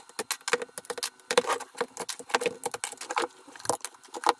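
Hands handling the cell modules of a lithium-ion battery pack and peeling off its plastic insulating sheets: a quick, irregular run of small clicks, crinkles and rattles.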